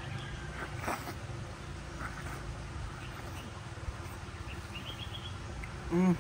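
A short hummed "mm" from a person near the end, over a steady low outdoor background with a faint click and a quick run of faint high chirps.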